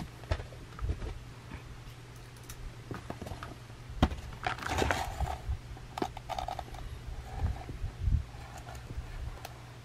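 Scattered clicks, taps and rustling from a cardboard Plarail toy box being handled close to the microphone, with the sharpest knock about four seconds in. A low steady hum runs underneath.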